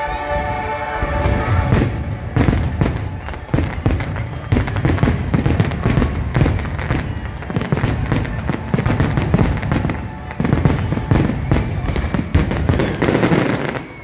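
Fireworks display: a dense barrage of booming bursts and sharp crackling reports, thick from about a second and a half in and cutting off at the very end, with show music beneath.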